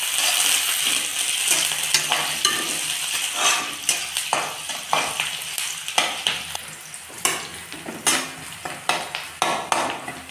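Sliced onions and green chillies sizzling in hot oil in a kadai, stirred with a spatula that scrapes and knocks against the pan in repeated strokes. The sizzle is loudest at the start and eases off as the stirring goes on.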